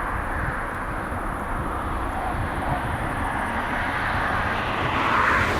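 Jet airliner's engines heard from the ground as a steady rushing noise with a low rumble, swelling a little near the end.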